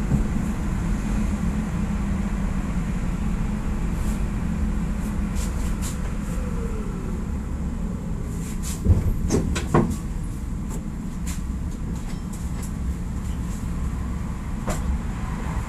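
Antwerp PCC tram heard from the driver's cab on the move, a steady low rumble of motors and wheels on the rails. A short falling whine comes about six seconds in, and a few sharp clacks and knocks come around nine to ten seconds in.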